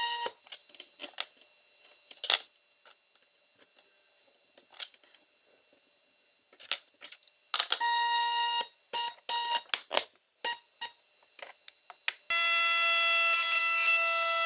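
The stepper motor of a homemade automatic router lift whines steadily for about a second, twice, raising the router bit while the rocker switch is held; switch clicks and light handling knocks fall in between. From about twelve seconds in, a louder steady whine of the trim router running takes over.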